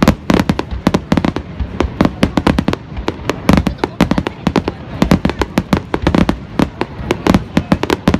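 Aerial fireworks bursting overhead: a rapid, irregular string of sharp bangs and crackles, several a second, with deep booms beneath.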